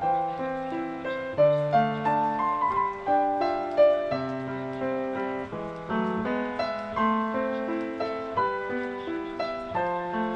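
Background music: a solo piano playing a gentle melody over lower accompanying notes, several notes a second, each note fading after it is struck.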